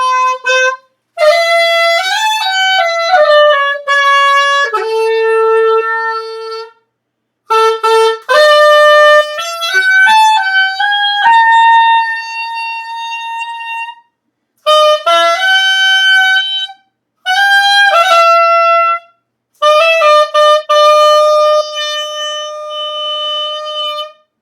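Solo saxophone playing a slow melody of long held single notes, in several phrases with short gaps between them.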